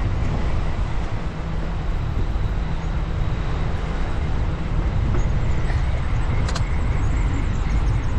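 Wind buffeting the microphone and a steady rumble of rolling over pavement while moving along a paved path, with a single faint click about six and a half seconds in.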